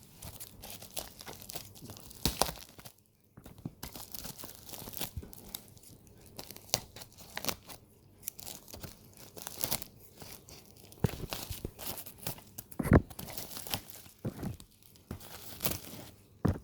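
Package being torn open and its wrapping crinkled and rustled by hand, in a run of irregular tears, crackles and small clicks, with one louder knock about thirteen seconds in.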